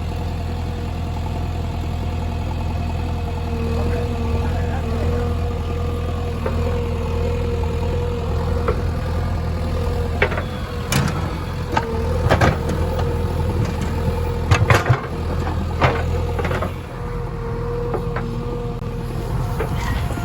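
Heavy diesel engine running steadily, with a steady tone over its rumble. Several sharp knocks come through about halfway in.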